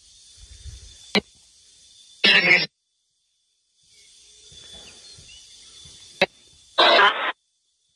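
Two short voice-like sounds, each under half a second, about two seconds in and again near the end, with a sharp click before each, over a faint high hiss that drops out and comes back abruptly.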